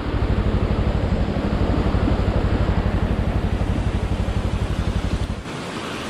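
Motorcycle engine running at low speed, a steady low throb, over the rush of river water pouring across a concrete causeway. The engine sound stops abruptly about five seconds in, leaving only the rushing water.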